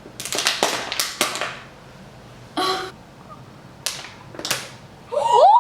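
A quick series of sharp clicks and crackles, clustered about a second in, then a short scrape and two more clicks, from hands handling things in the kitchen. A short laugh starts just before the end.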